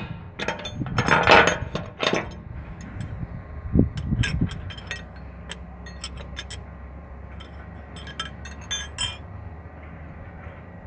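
Metal clinks and scrapes of a wrench and hand tools against the planetary gears and housing of an excavator swing reduction gear, in scattered bursts, busiest in the first two seconds and again near nine seconds in. A low steady hum runs underneath.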